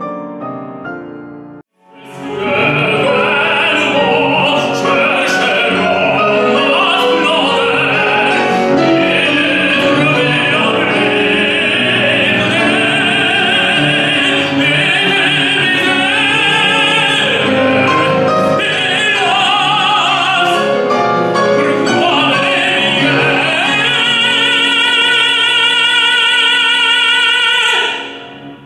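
Opera singing with grand piano accompaniment. It opens with the fading end of a soprano's piece and a brief break. From about two seconds in, a male opera singer sings an aria in full voice over the piano, ending on a long held note with wide vibrato that dies away near the end.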